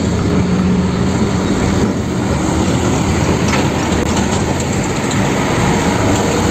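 A steady, dense vehicle-like noise with a low hum in the first couple of seconds.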